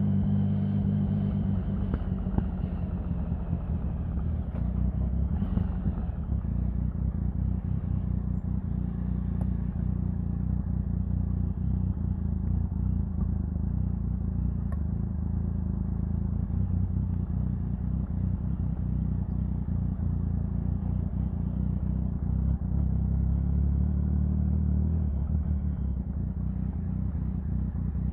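Triumph Sprint 1050's three-cylinder engine running steadily, its pitch easing down a little in the first couple of seconds and its low note swelling again near the end.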